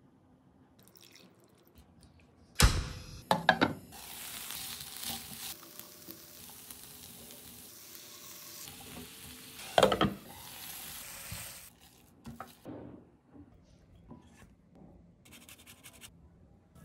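Chicken pieces sizzling in an oiled frying pan, a steady hiss lasting several seconds, with a few loud knocks or clatters against the pan just before the hiss begins and again partway through. After the sizzle stops come softer, scattered scrapes and taps, including a brief run of grater scraping near the end.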